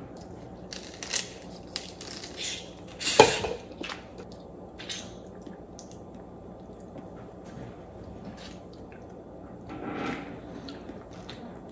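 Boiled crawfish being eaten by hand: shells cracking and peeling, with wet sucking and squishing from the heads, and one louder sharp crack about three seconds in. Shells rustle near the end as a hand reaches into the pile.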